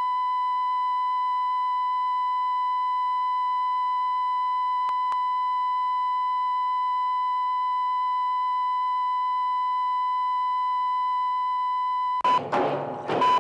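Steady 1 kHz line-up test tone that goes with the colour bars, cutting off about twelve seconds in. Near the end, busier programme sound starts, with a short beep about once a second.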